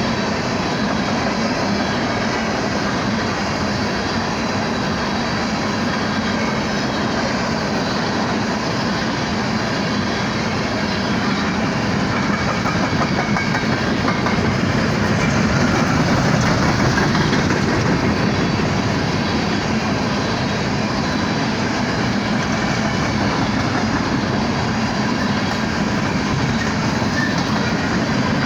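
Empty BNSF coal train rolling past, its wheels running steadily over the rails, getting a little louder about halfway through.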